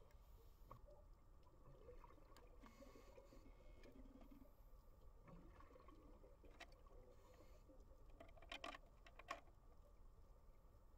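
Near silence: faint underwater ambience, a low steady rumble with a few soft wavering tones and a brief cluster of clicks about eight and a half to nine seconds in.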